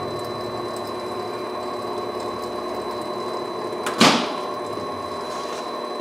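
Hengli HSA1505 belt furnace running: a steady mechanical hum with several held tones from its cooling fans, blowers and belt drive motor. One sudden loud knock about four seconds in.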